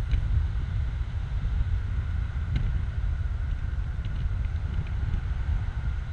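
Wind buffeting the microphone in an open-top BMW Z4 roadster driving at speed, a heavy, choppy rumble with the car's road and running noise underneath. A couple of light clicks come through, one right at the start and one about two and a half seconds in.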